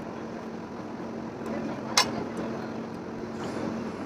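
Steady background noise with a faint low hum, and one sharp click about halfway through.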